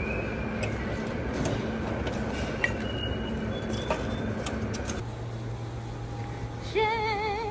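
Steady hum of a restaurant buffet room, with a few light clinks of metal serving tongs against stainless-steel buffet pans. Near the end a warbling tone with wavering pitch begins.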